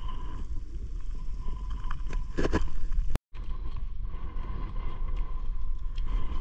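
Wind buffeting an action camera's microphone: a steady low rumble with a louder gust a little past two seconds. The sound cuts out completely for a moment about three seconds in, then the same rumble resumes.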